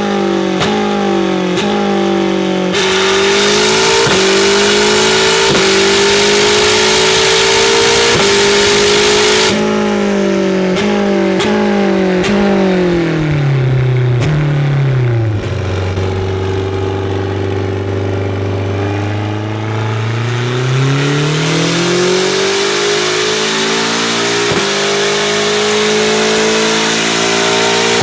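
Turbocharged, straight-piped E36 M3 hill-climb race car engine running on a chassis dyno, revving up through the gears of its paddle-shifted Holinger transaxle; the pitch drops sharply at each upshift. About a third of the way in there are sharp cracks, then the revs fall away to a low steady note for several seconds before the engine pulls up through the gears again.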